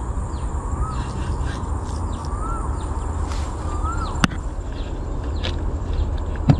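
Birds calling: a short whistled call that rises and falls, three times about a second and a half apart, among quicker high falling chirps, over a steady low rumble. A single sharp click about four seconds in.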